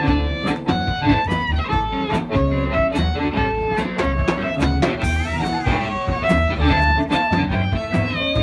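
Live blues band playing: a harmonica holds and bends a lead line over upright bass and a steady beat.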